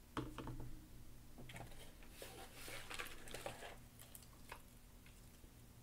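Faint clicks and scratchy rustling of small electronic components, an LED and its leads, being handled and pushed into a solderless breadboard. A few sharp ticks come near the start, the scratching is densest in the middle, and a last click comes about four and a half seconds in.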